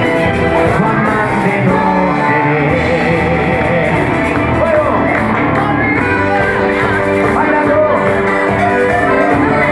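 Live band playing a song: a male singer's voice over a drum kit and the band, loud and steady.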